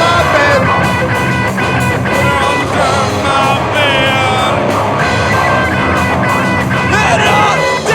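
Loud distorted rock band playing an instrumental passage: electric guitars over bass and drums, with a brief high guitar slide about three seconds in.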